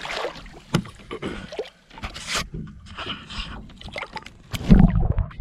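Scattered knocks and clatter aboard a small fishing boat, with a loud low rumble starting about five seconds in.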